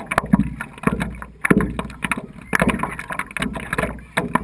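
Lake water slapping and splashing against the nose of a stand-up paddleboard as it is paddled through light chop, in quick irregular bursts over a low rumble.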